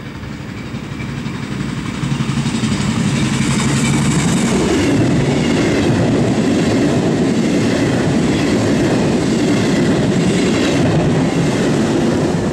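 Double-deck regional passenger train hauled by an FS E.464 electric locomotive passing close by at speed. The rumble of wheels on rails builds over the first two seconds, then holds steady and loud.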